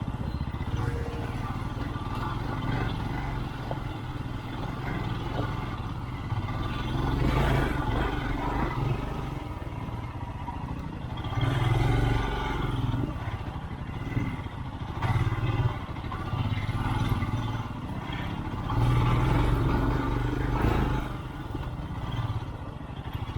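Single-cylinder adventure motorcycle engine running over a rough off-road trail, revving up in several surges, with clattering and scraping from the bike over the rough ground.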